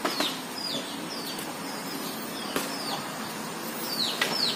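Birds calling: a string of short, high chirps that slide down in pitch, coming irregularly every half second or so, with a couple of sharp clicks, one at the start and one about two and a half seconds in.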